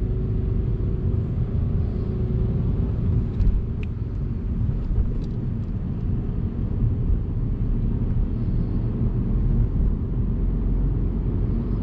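Steady low rumble of a car's engine and tyres on the road, heard inside the moving car's cabin. A faint drone fades after about three seconds and comes back near the end.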